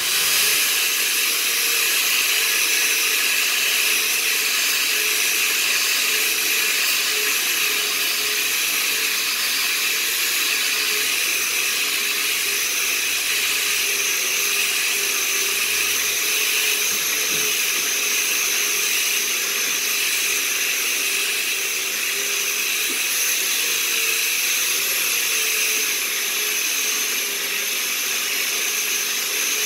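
A wire brush on a handheld rotary power tool starts up and runs steadily against a wood beam, scouring away the softer grain to give it a weathered texture. The tool makes a steady whine over a loud hiss.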